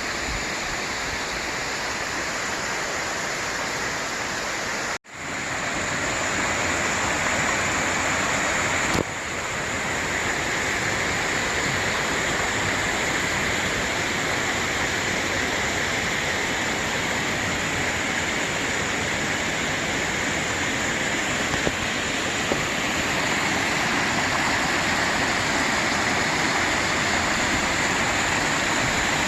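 Water of a mountain stream rushing steadily over rocks, an even hiss. It cuts out for an instant about five seconds in, then carries on slightly louder.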